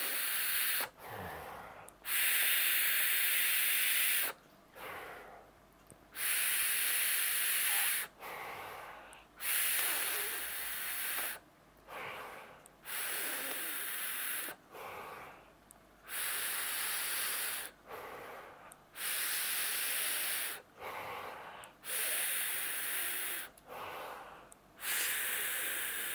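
A boro-tank vape with a 0.3-ohm coil at 60 watts being drawn on direct to the lung, over and over: loud airy hisses of about two seconds each, every two to four seconds, alternating with softer breathing as the vapour is let out.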